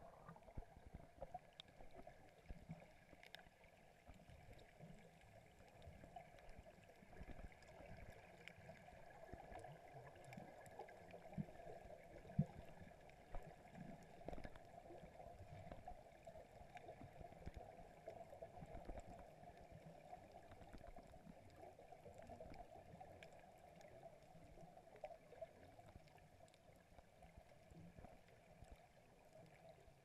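Faint, muffled underwater ambience through a camera's waterproof housing: a steady low hum with scattered small clicks and bubbling.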